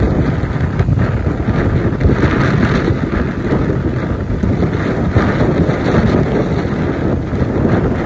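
Storm-force wind gusts buffeting the microphone with a continuous low rumble, under a rushing hiss that swells and eases as the gusts come and go.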